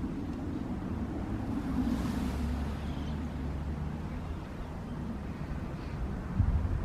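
Wind buffeting the microphone outdoors: a steady low rumble that swells with a gust about two seconds in. A short low knock comes near the end.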